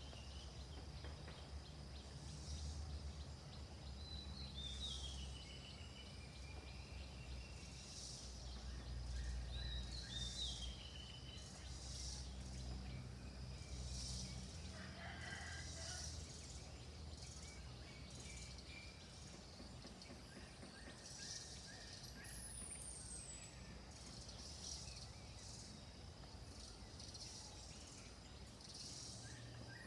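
Rural outdoor ambience: birds calling with short notes falling in pitch, repeated every few seconds, over a faint pulsing insect chirr about every two seconds and a steady low rumble. A rooster crows faintly about halfway through.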